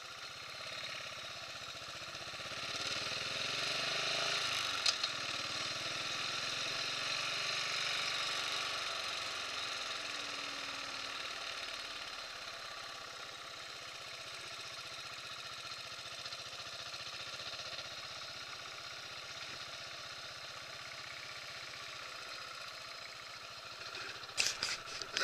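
Buell motorcycle engine running as the bike is ridden at low speed, heard from a handlebar-mounted camera. It grows louder about three seconds in, holds for several seconds, then settles to a steady quieter run; a few sharp knocks come near the end.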